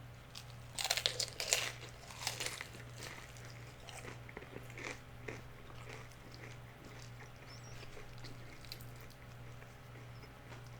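A person biting into a crispy fried chicken flauta, with a run of loud crunches about a second in and a few more shortly after, then chewing with softer crunches.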